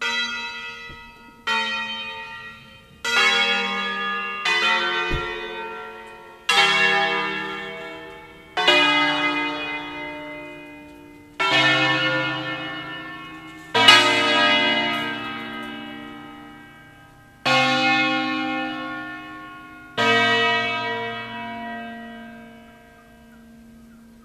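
Church bells from a peal of eight in B-flat, cast by Pruneri in 1909 with three recast by Ottolina in 1948, swung and rung electrically under manual control. About ten single strokes come at uneven intervals, each left to ring out, and deeper bells sound from the middle on.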